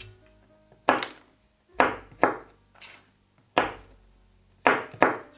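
Kitchen knife chopping peeled almonds on a cutting board: about six sharp chops, unevenly spaced, each blade strike going through the nuts onto the board.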